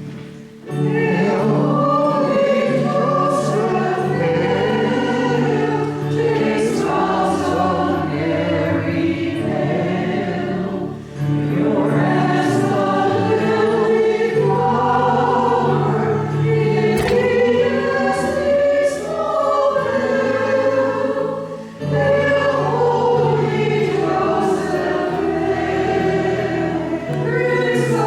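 A choir singing a hymn in phrases with short pauses for breath, over steady held low accompanying notes.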